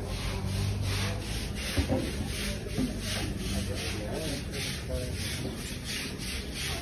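Rhythmic scraping or rasping, about three even strokes a second, as of something rubbed back and forth.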